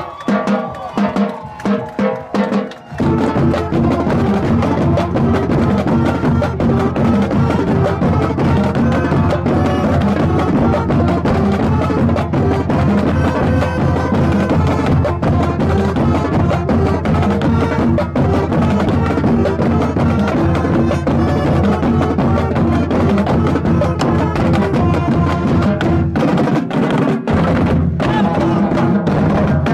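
Marching band playing loudly at close range. A few held notes open it, then about three seconds in the drums come in with sharp rim clicks under sustained pitched notes, and the full band plays on.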